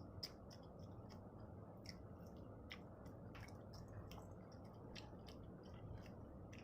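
Faint eating sounds: soft, irregular clicks and lip smacks of chewing, a few a second, over a steady low background hiss.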